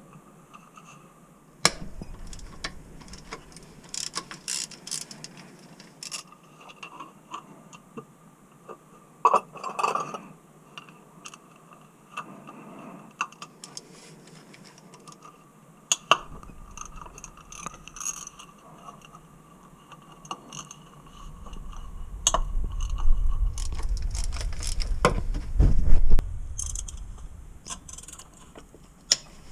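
Socket ratchet clicking in short runs as intake manifold bolts are loosened, with scattered metal clinks and knocks. Heavier knocking and rubbing comes in the last several seconds.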